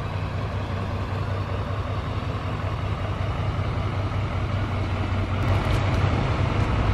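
Chevrolet pickup truck engine idling with a steady low hum, growing a little louder near the end.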